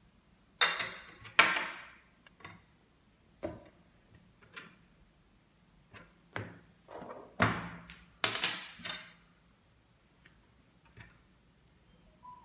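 Several sharp knocks and clinks of kitchenware handled on a hard tabletop: a drinking glass, a metal spoon and a wooden cutting board. The loudest come in two pairs, about a second in and again around eight seconds, with smaller taps between.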